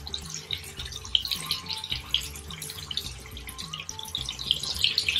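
Sago (sabudana) vadas deep-frying in hot oil in a steel kadai: a steady sizzling crackle with a few louder pops as more patties are dropped in. Soft background music plays underneath.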